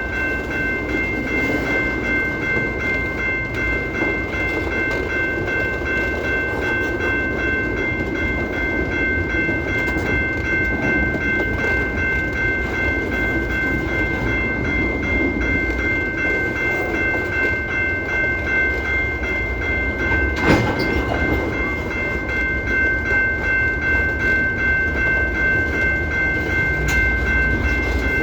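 A train running, with a low rumble, a steady high-pitched whine held throughout and faint rhythmic clicking. A single sharp knock comes about twenty seconds in.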